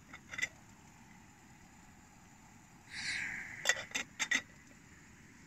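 Metal clinks from a small aluminium camping kettle being handled on a gas canister stove: a couple of light clinks at first, then a short scrape about three seconds in, followed by four quick sharp clinks.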